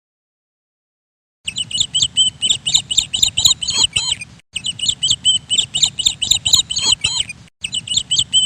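Birds chirping rapidly in quick, high repeated notes, starting abruptly after about a second and a half of silence and cutting out briefly twice.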